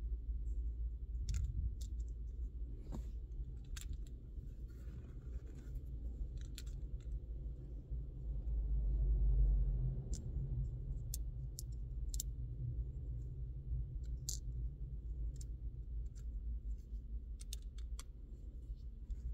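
Small plastic clicks and taps, scattered and irregular, as the pieces of a Toyota key fob's plastic shell are handled and pressed back together, over a steady low rumble.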